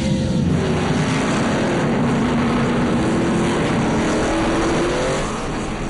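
NASCAR stock cars' V8 engines running at part throttle under caution, a steady engine note whose pitch climbs about four seconds in and then eases off.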